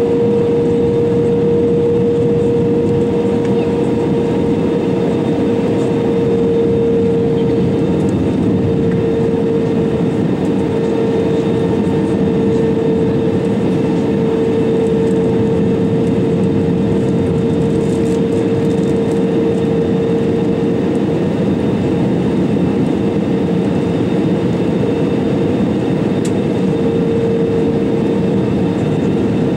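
Steady cabin noise inside an Airbus A320-200 in flight: the even rush of airflow and the engines, with a constant hum tone running through it.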